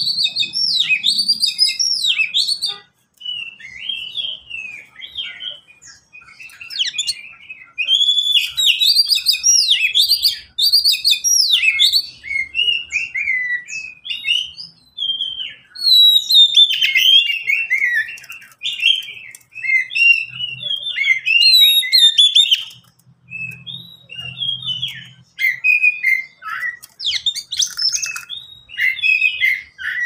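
Caged oriental magpie-robin singing: a long run of varied whistled and chirped phrases with quick up-and-down slurs, broken by short pauses.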